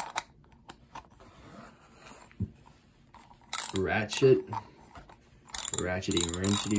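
Socket ratchet wrench clicking as it turns a bolt on a thermostat housing. It comes in two spells: briefly about three and a half seconds in, then again from about five and a half seconds on.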